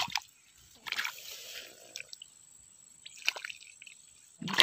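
Water in a muddy eel hole being stirred by hand: soft sloshing and dripping, with the main sloshing about a second in and a few small clicks after it.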